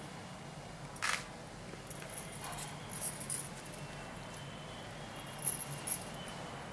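Bangles on the wrist jingling lightly, with small handling clicks, in a few brief bursts about a second in, around three seconds in and near the end, over a low steady hum.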